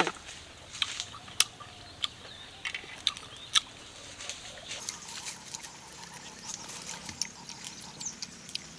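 Close-miked eating sounds: sharp wet clicks and smacks of chewing lychee fruit over the first few seconds, then a softer run of fine crackles as a lychee's shell is peeled with the fingers.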